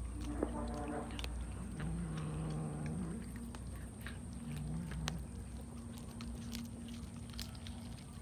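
Cat chewing and biting into a raw fish, with irregular sharp crunching clicks. Low, drawn-out cat calls come three times in the first five seconds or so.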